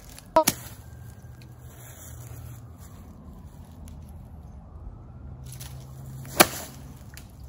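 Golf club striking a ball off leaf-strewn, rocky ground in the rough: one sharp crack about six seconds in, the loudest sound. Two lighter clicks come near the start.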